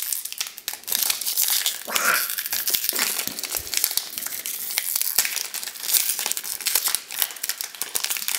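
Foil wrapper of a Pokémon card booster pack torn open and crinkled by hand: a dense, uneven crackling rustle.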